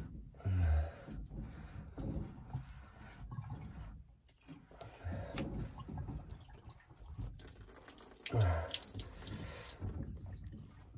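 Water splashing and dripping from a water-filled whole-house filter housing as the blue sump is twisted loose by hand. Two short, low thuds stand out, one about half a second in and one about three quarters of the way through.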